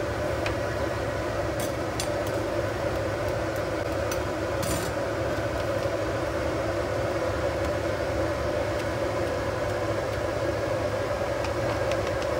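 Stainless steel noodle cooker at the boil: a steady rushing hum of the heated water and burner, with a few light metal clinks as the noodle strainer baskets are handled.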